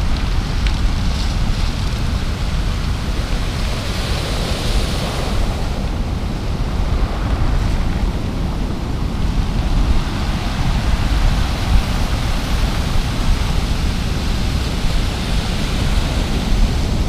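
Ocean surf breaking and washing over a cobble beach: a steady rushing wash that swells about four seconds in, with wind rumbling on the microphone.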